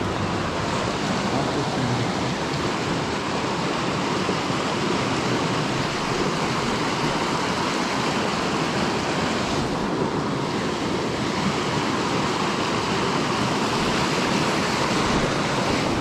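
Small creek rushing steadily over rocks and riffles close by.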